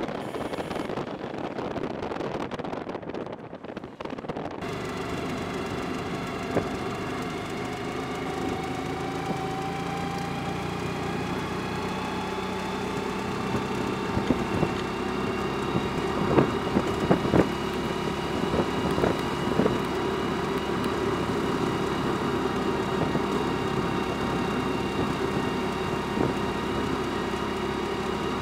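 Motor vehicle running on the road. A rush of wind for the first few seconds gives way to a steady engine hum whose pitch slowly rises, and a few sharp knocks come partway through.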